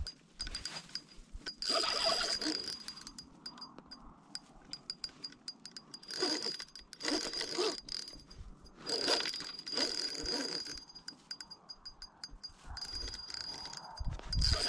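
Spinning reel being worked against a heavy hooked sturgeon: a fine, fast metallic ticking from the reel throughout, with several spurts of louder winding noise as line is cranked in.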